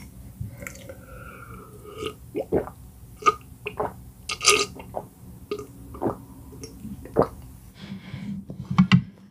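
A person gulping water from a glass mug close to the microphone: a string of loud swallows and throat sounds, irregularly spaced, loudest near the end.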